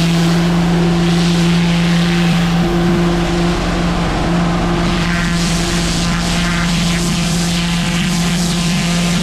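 Pressure washer running with a turbo nozzle spraying a high-pressure jet onto block paving: a steady machine hum under the loud, constant hiss of the water jet.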